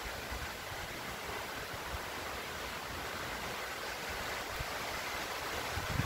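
Steady hiss of rain falling, growing a little louder, with a few faint low knocks underneath.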